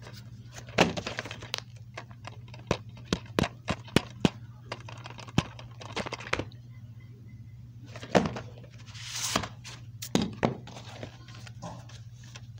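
Plastic DVD case being handled: a run of irregular clicks and knocks, with a longer rustling, sliding sound about nine seconds in. A steady low hum runs underneath.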